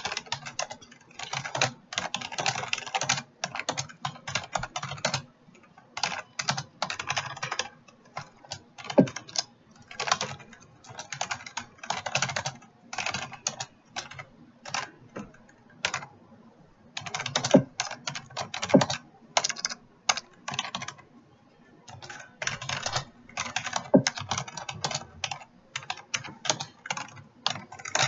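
Computer keyboard being typed on fast for a timed typing test: rapid runs of key clicks in bursts of a second or two, broken by short pauses, with an occasional louder keystroke.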